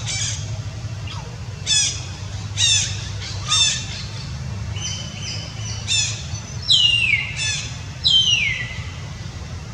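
About eight short, high-pitched animal calls, several sliding down in pitch, the last two near the end longer, over a steady low hum.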